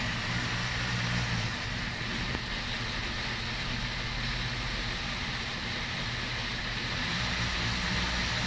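Hamilton Beach countertop blender running at speed, blending a thick cream-cheese and egg-yolk batter: a steady motor whir with a low hum underneath.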